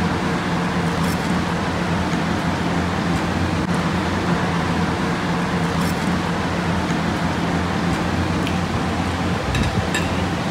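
Steady mechanical hum and hiss of room ventilation, with a few faint clicks of a fork against a plate.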